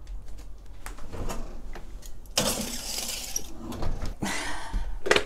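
A foil-lined roasting pan being put back into the oven: rattling and clicks of the oven door and rack, with a long scraping rush about halfway through and a shorter one near the end.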